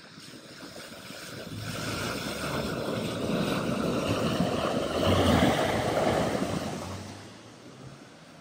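A vehicle driving through deep floodwater, its engine running under the rush and splash of water. It grows louder to a peak about five seconds in, then fades as it passes.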